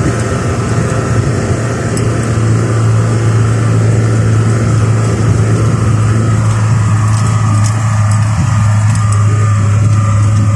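Car engine running steadily under load while driving up a snow-covered dirt track, heard from inside the cabin as a constant low drone with road noise from the tyres.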